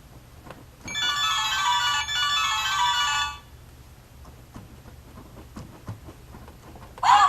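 A tinny electronic melody from a children's sound book's speaker module plays for about two and a half seconds, starting about a second in and stopping abruptly. Faint clicks follow, and another loud sound clip starts right at the end.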